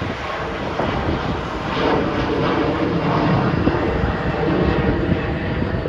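Twin-engine jet airliner passing overhead, its engines giving a steady roar that swells through the middle.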